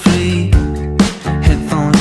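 Upbeat music track with a steady beat, about two beats a second.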